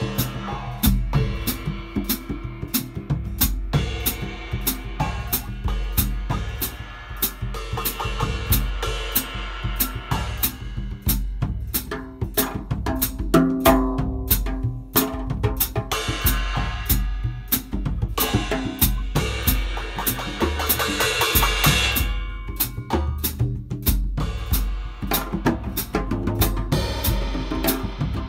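Two-person percussion improvisation: djembes played with bare hands over a drum kit, with bass drum, snare and cymbals struck with sticks and a felt mallet on a Paiste cymbal. Fast, dense strokes run throughout, and a cymbal swell builds about two-thirds of the way in.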